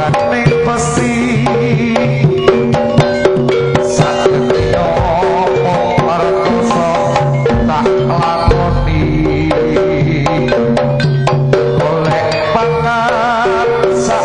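Live Javanese jaranan music from a gamelan ensemble: hand drums beat quick, dense strokes over the steady ring of gongs and gong-chimes, with a wavering melody line above.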